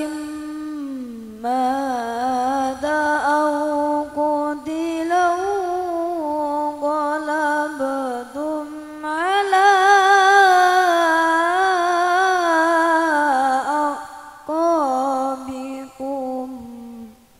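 A solo voice reciting the Quran in melodic tilawah style: long melismatic phrases with held, wavering notes, broken by short pauses for breath. The voice stops just before the end.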